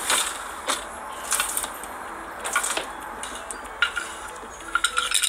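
Irregular clinks, knocks and clatters of hard objects being handled, over a steady hiss.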